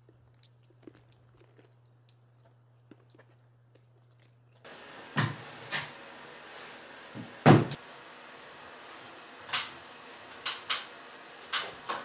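A steady low hum with a few faint ticks, then a run of sharp knocks and clicks from things being handled in a small room, the loudest about seven and a half seconds in.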